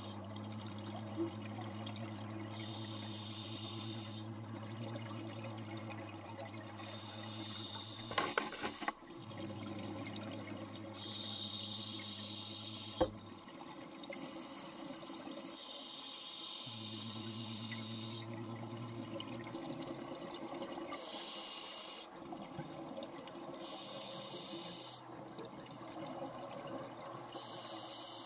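Underwater recording of a scuba diver breathing through a regulator: a hiss with each breath about every four seconds, alternating with bubbling between them. A steady low hum runs underneath and drops out a few times, and there are a couple of sharp knocks.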